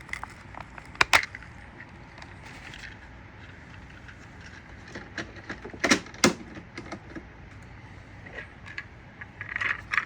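Sharp plastic clicks and knocks from parts of a Hoover SteamVac carpet cleaner being handled: two about a second in and two more about six seconds in, with light rustling and tapping between.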